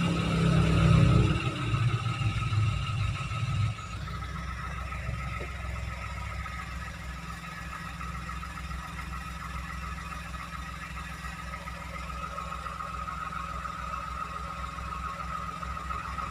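Toyota Agya car engine running, louder and uneven for the first few seconds with a peak about a second in, then dropping suddenly near four seconds in to a steady low hum.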